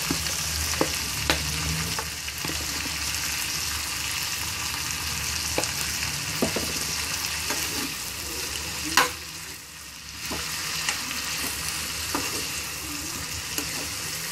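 Pirandai stems and tomato pieces sizzling steadily in oil in a pan while a metal spoon stirs them, clinking against the pan about nine times. The loudest clink comes about nine seconds in, followed by a brief lull in the sizzle.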